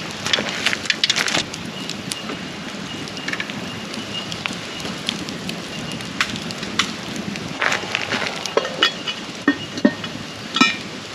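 Campfire crackling: a steady hiss of burning wood with irregular sharp pops and snaps.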